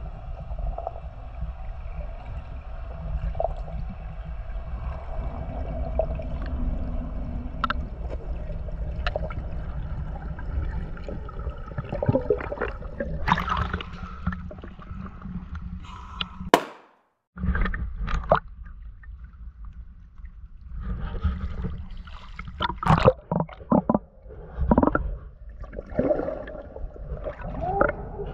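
Water heard through an action camera: a steady low underwater rumble with faint gurgling, then irregular splashing and sloshing at the surface from about thirteen seconds in, with a brief dropout of sound near the middle.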